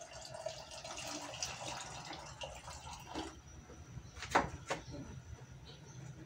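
Faint room noise, with a hiss for the first three seconds or so, then two sharp clicks about a third of a second apart a little past four seconds in.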